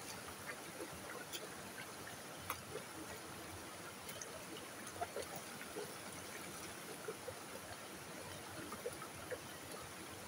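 Creek water running steadily, with scattered small splashes and drips.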